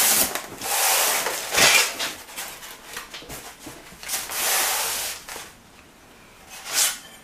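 Polystyrene foam packaging rubbing and scraping as it is handled to unpack an earthenware potato baker, in several rough rustling sweeps of up to about a second each, with a quieter stretch near the end broken by one short sharp scrape.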